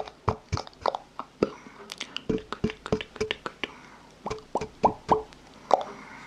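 Wet mouth sounds: a quick, irregular run of tongue clicks and popping plops, several a second, some with a short hollow pitched pop.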